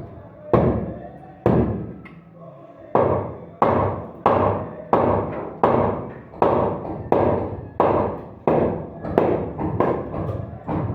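Hammer striking wood in a steady run of blows, about one and a half a second, each knock ringing briefly; two single blows and a short pause come before the steady run starts.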